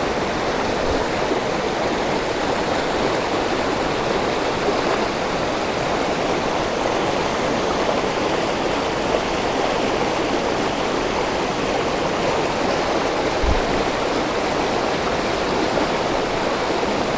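Fast-flowing stream rapids rushing steadily over rocks.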